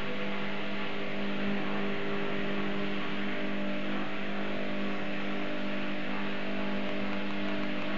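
A steady droning hum over a hiss. Its pitch and loudness do not change.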